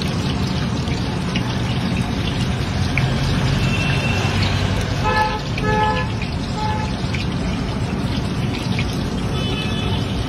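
Raw banana slices dropping off a hand slicer into a wok of hot oil, with a steady sizzle of deep-frying. A few short tooting tones come about five to seven seconds in.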